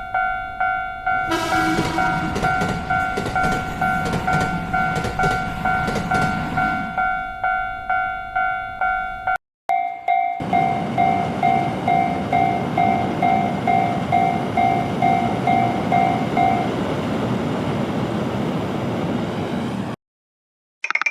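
Railroad crossing alarm bell ringing in a steady rhythm of about two strikes a second while a train rushes past. The sound breaks off briefly about halfway, then the bell and the passing train come back; the bell stops a few seconds before the train noise ends.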